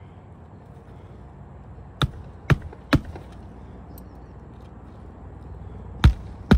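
Hammer driving roofing nails into asphalt shingles: three sharp blows about half a second apart, then two more near the end.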